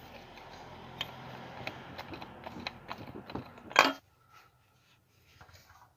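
Ratchet wrench clicking as it turns a cap-type oil filter wrench on the car's spin-on oil filter, the clicks coming unevenly over a few seconds, then a loud metallic clank just before the sound stops.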